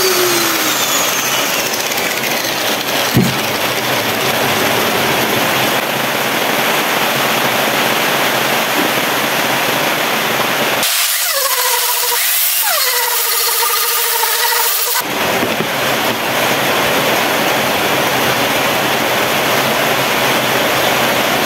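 Angle grinder fitted with a 40-grit sanding disc, sanding a rough cedar board, running steady and loud. About halfway through the sound thins for some four seconds and a whine that rises and falls in pitch comes through. There is a single knock about three seconds in.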